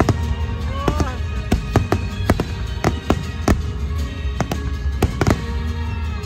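Aerial fireworks bursting in quick, irregular succession, a dozen or more sharp bangs, over loud accompanying music.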